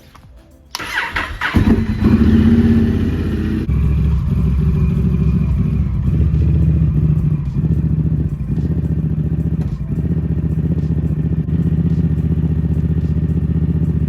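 Honda Rebel 1100's parallel-twin engine cranked on the starter about a second in and catching, with a brief rise in revs, then settling into a steady idle.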